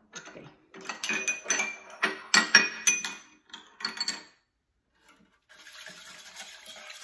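A metal fork scraping and clinking against a small ceramic bowl as the last of the egg yolk is scraped out. About five and a half seconds in, a wire whisk starts stirring the liquid yolk mixture in a stainless steel saucepan with a steady swishing.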